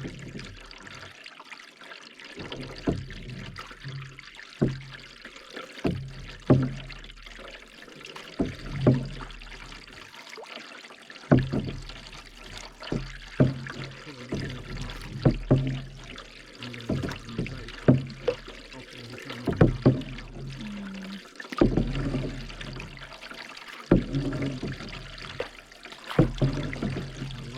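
Canoe paddles dipping and pulling through lake water, a stroke about every two seconds, with water trickling and dripping off the blades between strokes.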